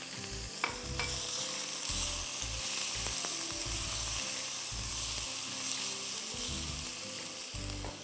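Chicken pieces sizzling steadily as they fry in a non-stick wok, stirred and turned with a silicone spatula.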